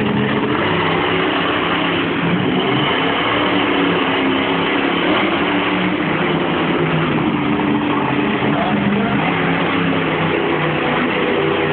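Monster truck engine running hard and loud, its pitch rising and falling a little with the throttle.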